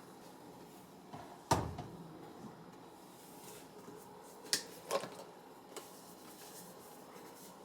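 A few light knocks of objects being handled against faint room tone: one louder knock with a dull thud about one and a half seconds in, then two quick clicks about half a second apart around the middle, and a small tap after them.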